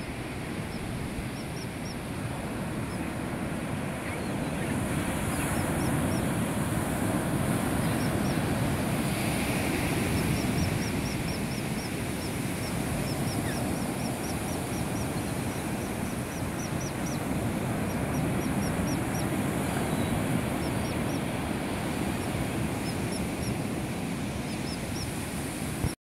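Ocean surf breaking and washing up the beach, a steady rush that slowly swells and eases, with birds calling throughout in quick runs of short high chirps.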